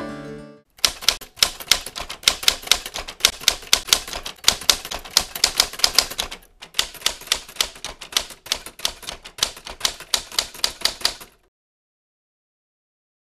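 Typewriter sound effect: a quick, continuous run of key clacks, with a short pause about halfway through. The clacking stops about two seconds before the end.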